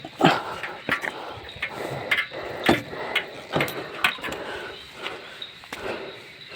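A string of irregular knocks and clicks, about a dozen over several seconds, with scuffing between them.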